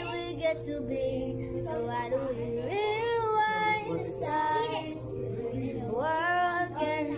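Children singing a few long, drawn-out notes that slide in pitch, over a background pop song.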